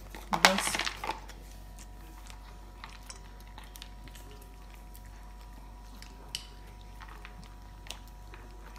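Small dogs, a shih tzu among them, eating hard dry kibble from a plastic tub and a plate: faint scattered crunches and clicks of teeth and kibble against the dishes. A short loud burst of a person's voice comes in the first second.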